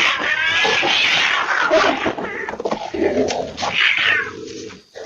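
Loud, harsh animal screeching with wavering, warbling cries, which fall away sharply just before the end.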